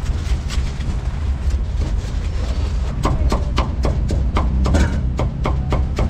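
Meat cleaver cutting crispy-skinned roast pork on a thick round wooden chopping block: a few scattered knocks at first, then from about three seconds in a run of rapid chops, about four a second, each a sharp knock on the wood.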